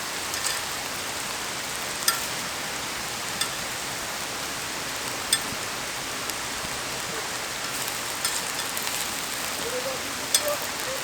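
Steady rain falling, an even hiss with a few sharp drip-like ticks standing out, most clearly about two seconds in and again near the end.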